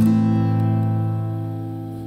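Acoustic guitar chord strummed once at the start and left to ring, dying away steadily.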